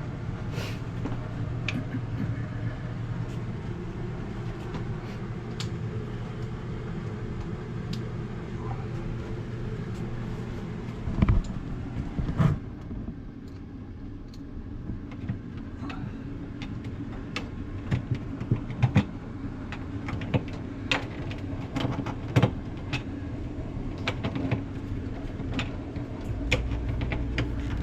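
Scattered clicks and knocks of refrigerator shelf parts and tools being handled during reassembly, with a louder cluster of knocks a little under halfway through, over a steady low hum.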